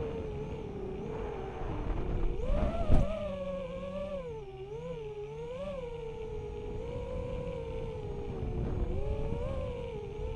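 Racing quadcopter's Racerstar BR2306S 2700kv brushless motors spinning DAL 5045 three-blade props, whining as heard from the onboard camera, the pitch wobbling up and down with the throttle. A sharp knock about three seconds in.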